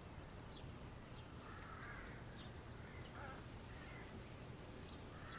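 Faint crows cawing several times over a low, steady background hum.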